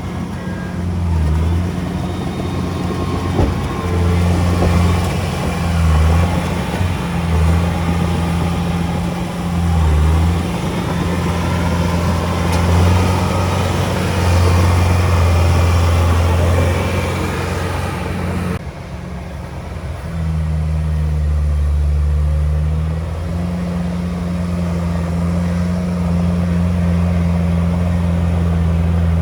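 Heavy diesel engine of earthmoving equipment running under varying load, its low hum dipping and recovering, with a steady clatter and scrape over it. About two-thirds of the way through, the sound changes abruptly to a steadier engine hum with far less clatter.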